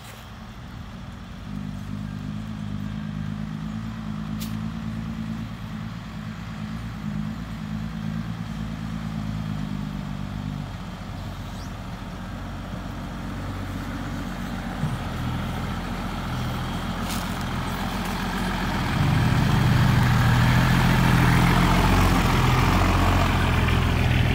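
Diesel engine of a dump truck running under heavy load. About 19 seconds in, it drops to a deeper note and gets much louder.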